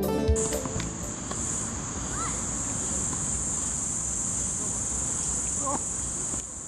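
Steady high-pitched insect chorus, an unbroken buzz that comes in as guitar music ends in the first half second.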